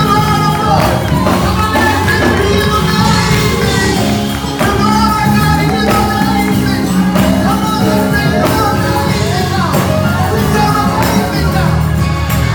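Gospel choir singing over a live band, with a tambourine among the instruments.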